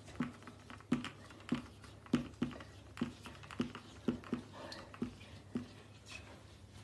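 Felt-tip marker writing on mirror glass: about a dozen short tapping strokes, roughly two a second, as characters are drawn on the glass.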